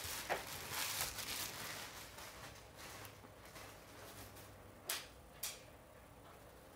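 Light rustling and handling noises that fade out, then two sharp clicks about half a second apart.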